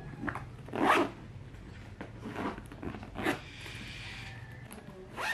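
Zipper on a child's nylon school backpack being pulled in several short strokes, the loudest about a second in.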